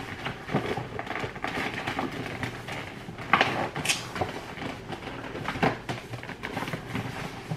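Rustling and handling of shoe packaging, uneven and ongoing, with a few sharper rustles or light knocks, the clearest a little over three and a half seconds in and around five and a half seconds in.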